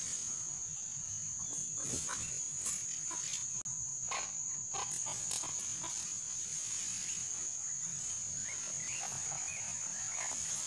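Steady high-pitched insect drone, with scattered short clicks and brief chirping calls from small animals.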